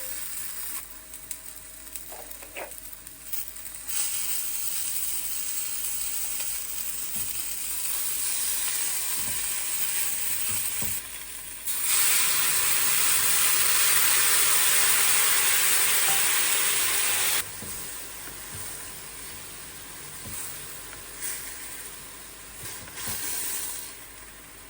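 Food sizzling in a hot frying pan. The sizzle swells about four seconds in and is loudest for about five seconds past the middle, starting and stopping abruptly, then settles back to a lighter fry.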